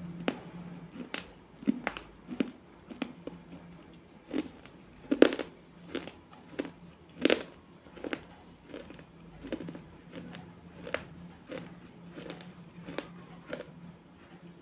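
Close-miked biting and chewing of brittle baked clay, sharp irregular crunches about one or two a second. The loudest crunches come about five and seven seconds in, and they get softer toward the end.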